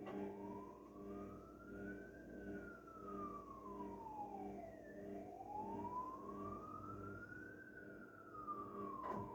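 A siren wailing slowly, its pitch rising and falling twice, heard faintly over the steady low hum of a running washing machine. A single click near the end.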